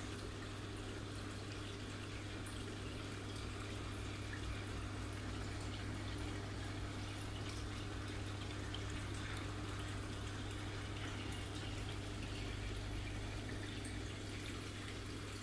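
Aquarium sponge filters bubbling and trickling steadily in small betta tanks, over a constant low hum.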